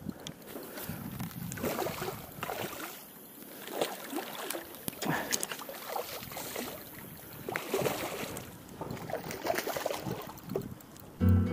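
Irregular water splashing and sloshing from a hooked fish being played at the surface and brought toward the net. Music comes in right at the end.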